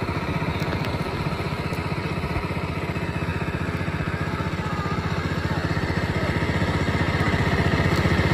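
Small boat's outboard motor running steadily underway, with a fast even engine pulse that grows a little louder toward the end.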